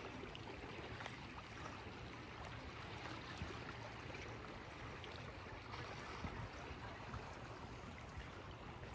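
Small waves lapping and trickling against a rocky lakeshore, faint and steady.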